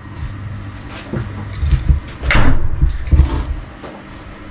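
A few low thumps and short knocks as a glass clip-top jar of dry spaghetti is handled on a wooden board and its glass lid is shut.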